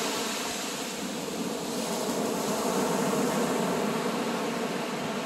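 Axial SCX24 micro crawler's small brushed electric motor and gears whining steadily as it drives through sand, over a steady hiss.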